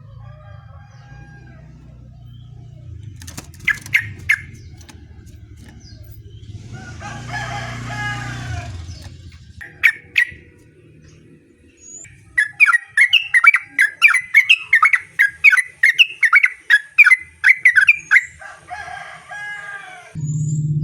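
Yellow-vented bulbul (trucukan) calling: a few scattered calls, then about halfway through a fast run of loud, repeated chirping notes, about three a second, for some five seconds. A low hum sits underneath at the start and comes back louder near the end.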